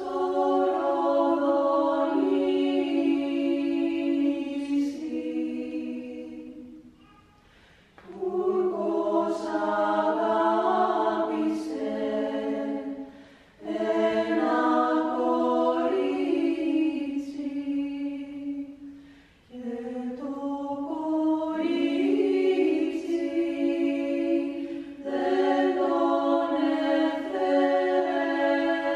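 Ten-voice women's a cappella choir singing in long held phrases, several voices in harmony, with short breaths of near quiet between phrases about seven, thirteen and nineteen seconds in.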